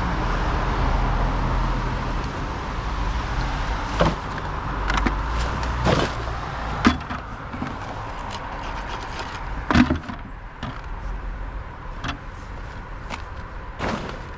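A road vehicle passing, its rushing sound fading over the first few seconds, then scattered knocks and clatters of plastic trash and cans being handled, the loudest about seven and ten seconds in.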